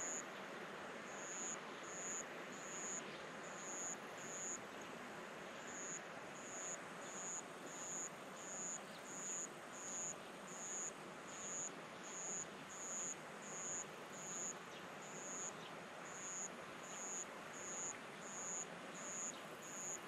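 An insect calling: a short, high-pitched chirp repeated evenly about every 0.7 seconds, with a few short pauses, over a steady outdoor hiss.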